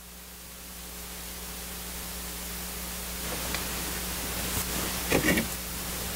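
Steady hiss with a low hum, rising in level, then a short clatter of items on refrigerator shelves being moved about five seconds in as someone reaches into the open fridge.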